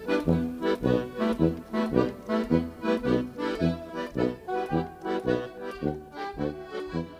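Instrumental background music with an even beat of short pitched notes.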